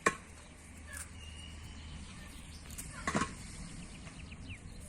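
A few sharp clicks or knocks, the loudest a quick double knock about three seconds in, over a faint low hum.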